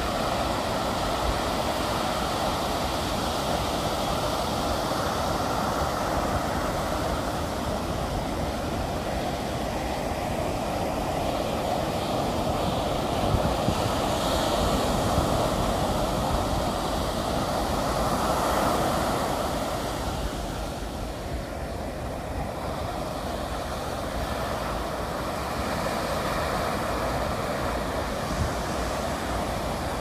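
Small ocean waves breaking and washing up a sandy beach: a steady rushing surf that swells about two-thirds of the way through and then eases.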